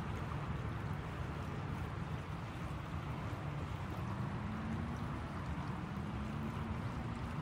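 Steady low outdoor rumble with no distinct events. A faint engine hum comes in about four seconds in and rises slightly in pitch.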